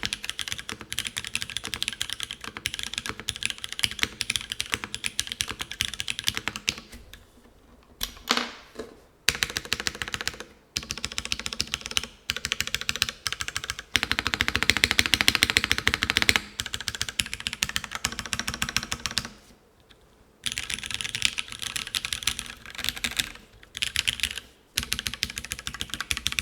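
Typing on a Karina 65 mechanical keyboard with Cherry Hyperglide Black linear switches, GMK keycaps and a full aluminium plate: fast runs of keystrokes broken by a few short pauses, with the densest, loudest run in the middle.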